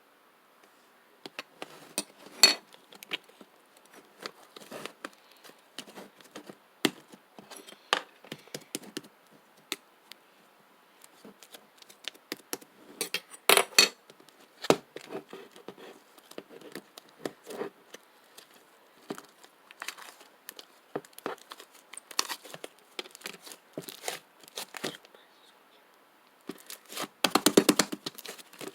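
Slime being squished and pressed by hand, making irregular sticky pops and crackling clicks, with a fast run of small pops near the end.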